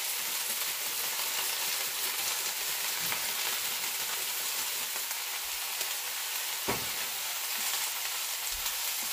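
Bok choy and broccoli sizzling in hot olive oil in a sauté pan: a steady frying hiss with faint crackles. One short knock comes about two-thirds of the way through.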